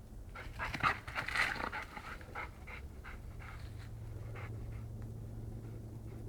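Retriever panting hard, in a loud ragged flurry of breaths over the first two seconds, then settling into lighter, even panting of a few breaths a second.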